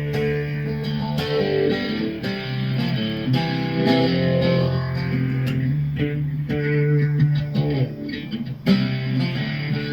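Background music: guitar-led instrumental with plucked and strummed guitar over a steady bass line.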